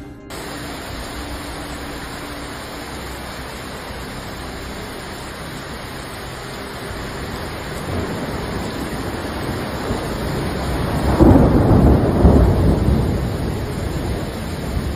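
Storm noise: heavy rain and wind hissing steadily, swelling into a loud, deep rumbling surge about eleven seconds in.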